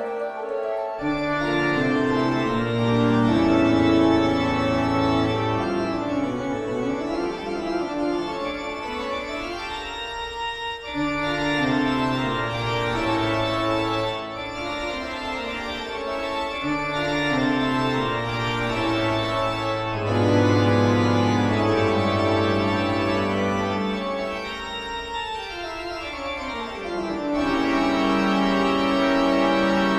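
Organ music playing slow sustained chords over a moving bass line, with pitch glides sliding downward twice.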